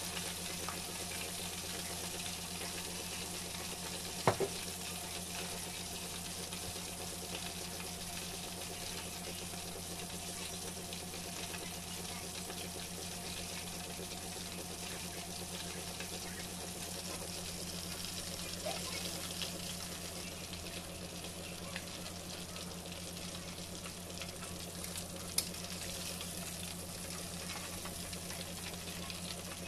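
Breaded fish fillets deep-frying in a pot of hot oil: a steady crackling sizzle, with a low steady hum underneath. A sharp click comes about four seconds in and another near the end.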